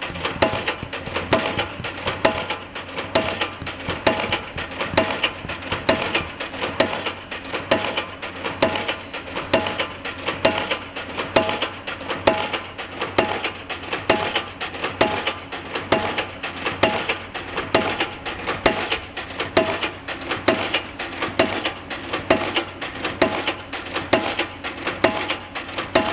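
Pile-driving hammer striking a bridge pile over and over in a steady rhythm, a bit more than one blow a second, each blow a metallic clang that rings.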